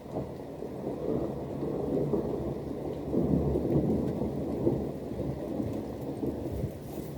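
Rolling thunder in a rainstorm, a low rumble that swells over the first few seconds, peaks about three to four seconds in, then slowly eases off.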